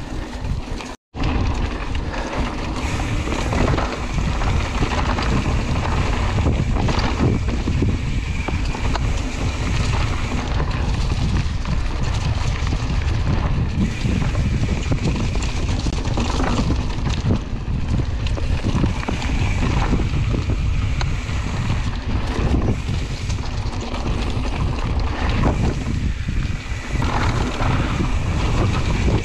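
Wind rushing over the microphone of a camera riding along on a mountain bike on a cross-country dirt trail, with frequent small knocks and rattles from the bike over the ground. The sound cuts out for a moment about a second in.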